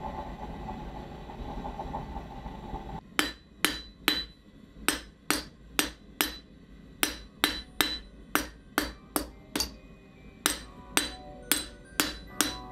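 Hand hammer blows on a handled tool held against a flat metal skull coaster lying on an anvil, two to three blows a second, each ringing briefly. They start about three seconds in, after steady background noise, and pause once for a moment near the end.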